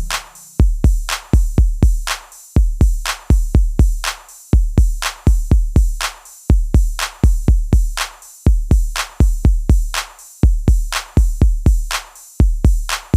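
Electronic music with only a drum-machine beat: deep kick-drum hits in quick groups of three to five, each group followed by a short gap, and no melody.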